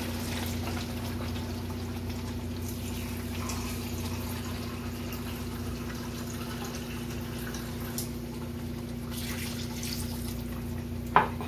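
Water poured from a glass jug into a large aluminium pot of fried chicken and potato curry, splashing into the masala to make the gravy: once at the start and again near the end, over a steady low hum. A brief knock just before the end.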